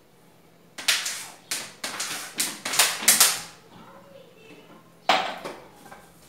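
Dishes being washed at a kitchen sink: a quick run of sharp clatters and splashes, then one more about five seconds in.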